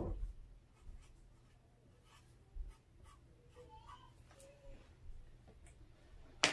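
Felt-tip marker writing on a sheet of paper laid on a wooden table, in faint short scratchy strokes. There is a light knock at the very start and a sharp click near the end.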